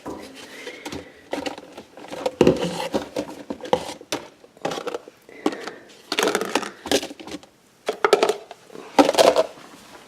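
Dishes and plastic containers clattering and knocking as a dishwasher is unloaded and the pieces are put away, in irregular clusters of knocks.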